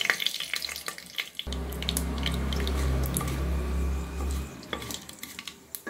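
Mustard seeds, cloves, cardamom and bay leaves sizzling in hot oil, with many sharp crackles and pops from the tempering. A low hum comes in about one and a half seconds in and stops about three seconds later.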